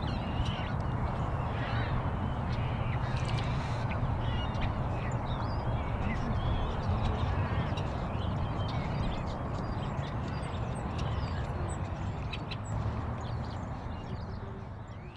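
Many birds calling in short chirps and squawks over a steady low background rush, fading out at the very end.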